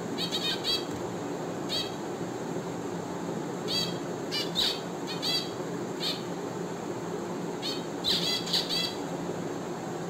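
Caged finches giving short, nasal calls in quick clusters, several birds at once, over a steady low background hum.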